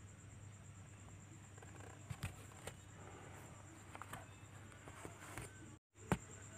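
Faint scratching and light taps of kittens' paws and claws on a towel and the cardboard box, over a low steady hum. Near the end the sound cuts out for an instant, then a sharp knock as the phone is moved.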